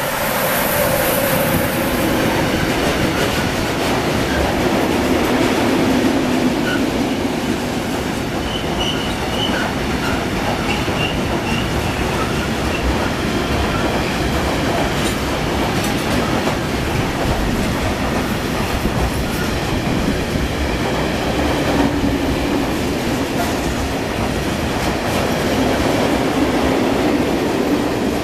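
Freight train of tank wagons running through at speed behind an E 186 electric locomotive. The locomotive passes first with a brief high hiss, then the wagons give a long steady rumble with clacking over the rail joints and faint wheel squeal partway through.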